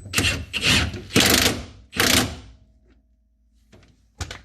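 A 3/4-inch socket tool tightening the top mounting bolt of a Jeep Wrangler YJ shock absorber, in four short ratcheting bursts over about two seconds, then a couple of clicks near the end.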